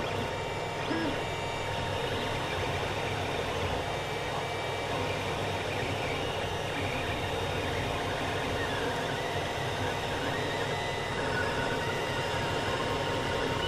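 Creality CR-10 3D printer running a print: a steady mechanical whirr of its stepper motors moving the print head and bed, with the hum of its cooling fans and a few brief whines as the moves change.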